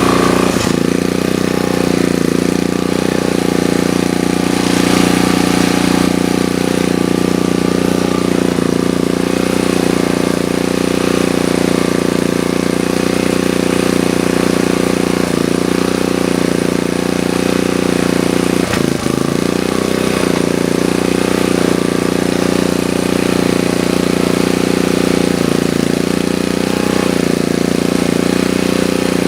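Sportsman GEN2000 portable generator's engine running steadily at a constant speed, with a brief dip about two-thirds of the way through.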